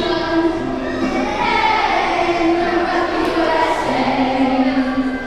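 A group of children singing together, holding each note for about a second.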